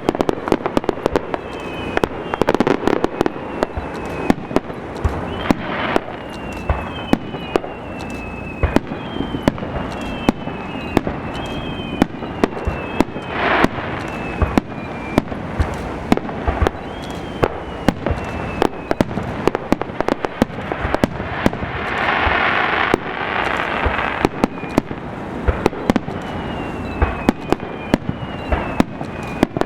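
Aerial fireworks display: rapid, irregular bangs of shells bursting overhead, with many short whistles that fall in pitch and a louder hissing spell about two-thirds of the way through.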